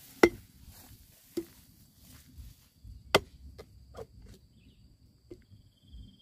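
Machete chopping into a young coconut's husk: about seven sharp chops at uneven intervals, the first and one about three seconds in the loudest.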